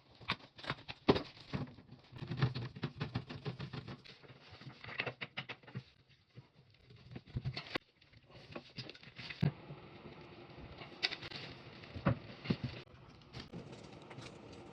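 Irregular clicks, taps and light clatter of hands working on plumbing fittings and tools during a faucet replacement, some in quick runs of small knocks.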